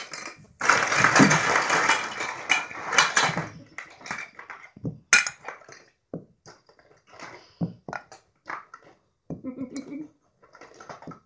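Hard plastic toy pieces clattering and rattling in a plastic shape-sorter bucket as a child rummages through them: a dense run of clatter for the first few seconds, then scattered clicks and knocks as pieces are handled and dropped.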